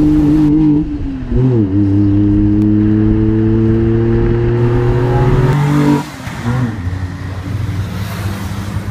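Hyundai EON with an aftermarket exhaust system, accelerating hard. The exhaust note dips and recovers about a second and a half in, then climbs steadily in pitch before cutting off about six seconds in.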